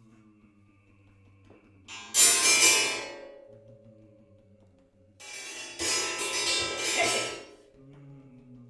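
Automobile coil springs played as percussion by hand. A sharp bright metallic strike about two seconds in rings on and fades. A second, longer burst of dense metallic ringing follows from about five to seven and a half seconds in. Between and around them, low quiet ringing tones hang on.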